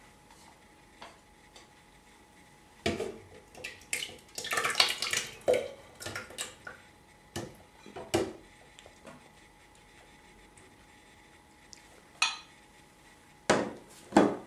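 A spoon scraping and knocking against a ceramic bowl as thick curd is scooped out into a plastic blender jar. It comes as scattered taps and short scrapes, busiest about four to five seconds in, with quiet stretches between.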